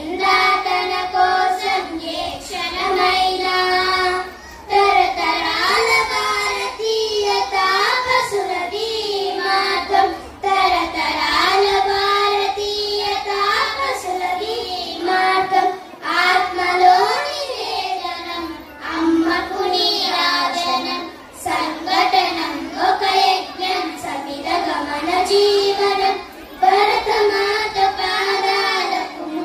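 A group of young girls singing together into handheld microphones, in sung phrases of a few seconds each with short pauses for breath.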